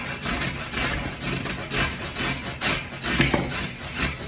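A raw carrot being grated on the small side of a stainless steel box grater: repeated rasping strokes, about two or three a second.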